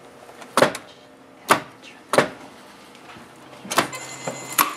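A few separate sharp knocks and clacks from work at an industrial sewing machine, spaced irregularly about a second apart, with no steady run of stitching.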